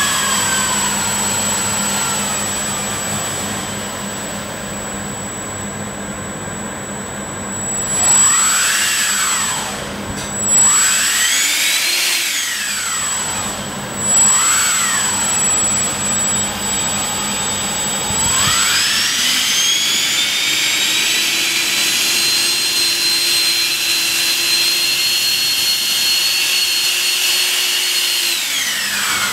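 ChangeSun 64mm 12-blade electric ducted fan, driven by a 3200kV brushless motor, whining as it is throttled. It winds down at first, then gives three quick throttle blips that rise and fall in pitch. About two-thirds through it spools up and holds a steady high whine, then spools down at the very end.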